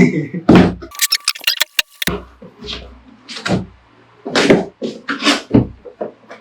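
Irregular thumps and knocks from handling the cardboard box of a soundbar and subwoofer as it is unboxed. A quick run of sharp clicks comes about a second in, over a steady low hum.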